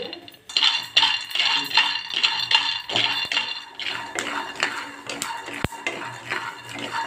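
Raw peanuts being stirred with a wooden spatula in a dry nonstick kadai: the nuts rattle and scrape against the pan in a rapid, uneven run of clicks, with one sharp knock about five and a half seconds in. The peanuts are being dry-roasted without oil.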